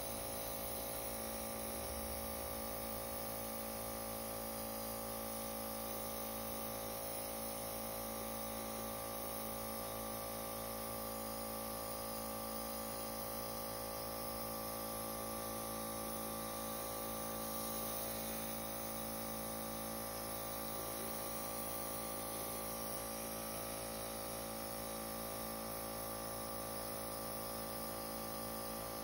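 Airbrush air compressor running, a steady hum with an even hiss of air.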